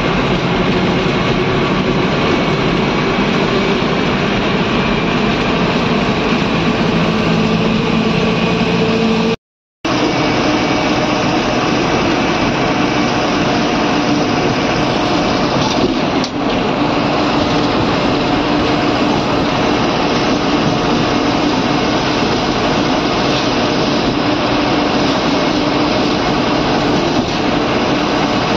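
Bus engine running steadily at road speed, heard from inside the driver's cab along with road noise. About nine and a half seconds in the sound cuts out completely for a split second, then returns with a slightly different engine note.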